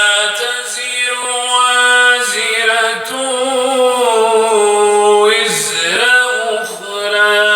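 Man's voice in melodic Quran recitation (tajwid), holding long drawn-out notes that bend slowly in pitch, with a short break and fresh onset about five and a half seconds in.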